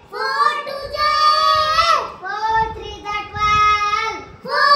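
A child singing in long, drawn-out notes: three held phrases with short breaths between them.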